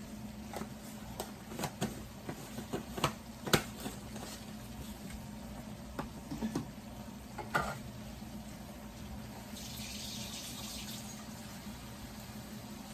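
Utensil clicking and tapping against a skillet while bouillon is stirred into gravy, a dozen or so light knocks over the first eight seconds, then water running briefly about ten seconds in. A steady low hum runs underneath.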